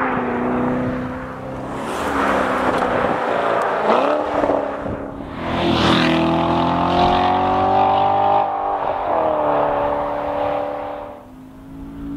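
Chevrolet C7 Corvette Stingray's naturally aspirated 6.2-litre V8 accelerating hard through the gears from its quad exhaust. Engine pitch climbs, then drops sharply about eight seconds in, climbs and falls again, and the sound fades near the end.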